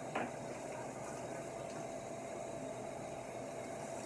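Water running steadily from a handheld shower sprayer onto a wet dog's coat in a bathtub, a steady hiss with a faint tone under it. A short sharp knock sounds just after the start.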